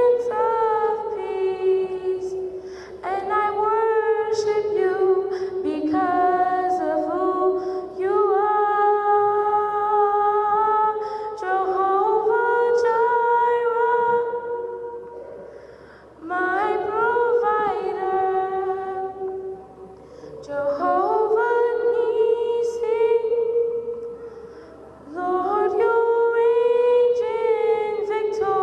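A girl singing solo and unaccompanied into a microphone, in long held phrases with brief pauses for breath between them.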